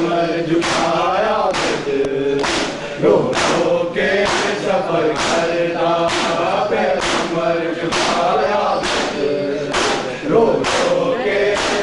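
A group of men chanting a noha in unison, with hands slapping bare chests in matam at a steady beat of about one strong slap a second.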